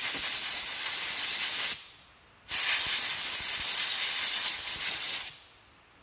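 Compressed-air blow gun blowing a part dry: a loud, steady hiss in two blasts, the first about a second and a half long, then a short pause, then a second of about three seconds that fades out as the trigger is released.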